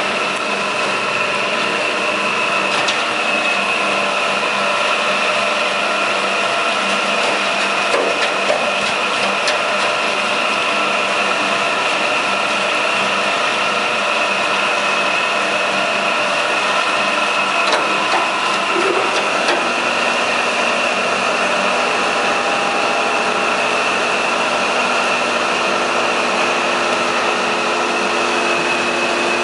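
Concrete reclaimer plant running: a steady mechanical drone with a constant high whine, and a few faint clicks and rattles through it.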